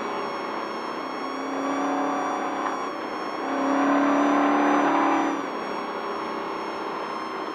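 Off-road race truck's engine under way, heard from inside the cab. The engine note swells louder for a couple of seconds in the middle, then eases back.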